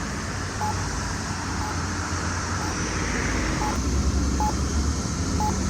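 Campbell Pedsafety accessible pedestrian push-button giving its locator tone, a short faint beep about once a second, over steady passing road traffic with one vehicle passing close about halfway through.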